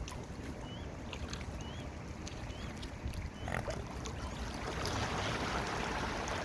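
Mute swan cygnets peeping: a handful of short, high, wavering calls in the first half, over wind rumbling on the microphone. A rushing noise swells from about four seconds in.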